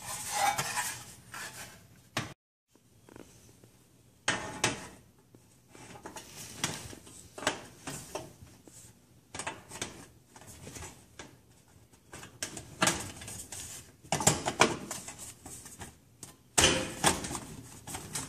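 Thin sheet-metal terminal-block cover on the back of an electric range being handled and fitted into place: irregular metallic clatter, scraping and clicks.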